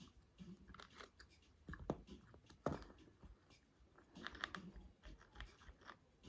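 Close-up chewing and biting on fried chicken wings: irregular crunches and small clicks, with two louder crunches about two seconds in.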